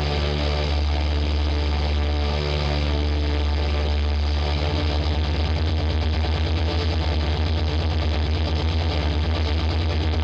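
Music led by a distorted electric guitar holding low sustained notes over a deep drone, which breaks into a rapid pulsing about halfway through.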